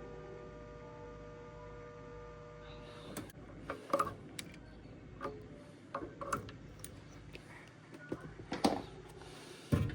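Scattered clicks and knocks, the loudest about four seconds in and just before the end, over a steady low hum. A set of steady higher tones stops about three seconds in.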